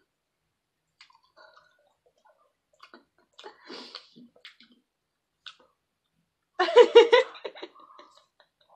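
Faint chewing and handling of food, then a short loud burst of laughter about two-thirds of the way through, trailing off into quieter sounds.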